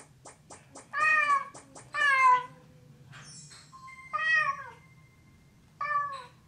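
Domestic cat meowing four times, each meow about half a second long and falling in pitch at its end. A run of light, quick clicks, about five a second, comes before and between the first two meows.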